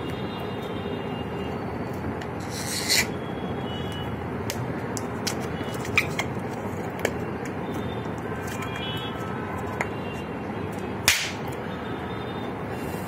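A small rubber balloon being squeezed and rubbed between the fingers, giving several small sharp pops as bits of the rubber are burst, the loudest about eleven seconds in, over a steady hiss.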